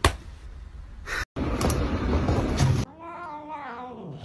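A cat's long wavering meow near the end, its pitch dipping and bending, after a loud stretch of noise.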